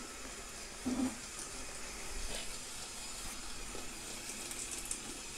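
Mould King QJ building-block steam locomotive with two electric motors running around a circle of plastic track: a steady motor whir and wheel noise. A short low sound comes about a second in.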